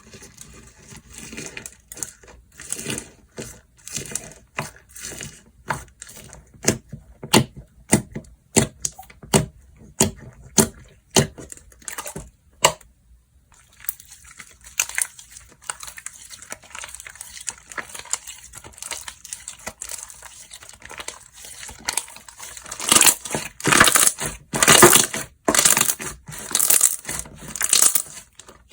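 Slime being squished and pressed by hand, giving many sharp clicks and pops through the first half. After a short pause about 13 seconds in, it turns into denser crackling squishing, loudest near the end.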